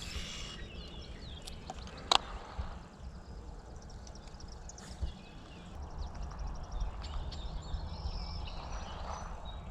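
Outdoor ambience of birds chirping, with a steady low rumble underneath and one sharp click about two seconds in.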